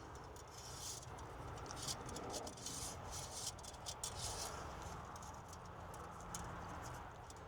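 Faint scraping and light clicking of the engine oil dipstick rubbing and tapping against its tube as it is worked back in, catching because it only goes in one way. The clicks come thickest in the first half and thin out later.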